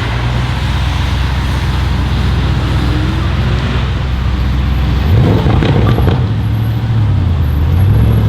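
Straight-piped, OPF-delete Audi RS6 C8 twin-turbo V8 idling with a deep exhaust note, blipped once about five seconds in: the revs rise and fall quickly with a short run of crackles and pops from the exhaust, then settle back to idle.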